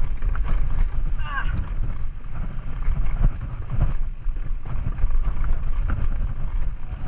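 Mountain bike rolling over a trail: wind buffeting the camera mic, with the rumble and rattle of the ride and scattered knocks. A brief high chirp comes about a second in.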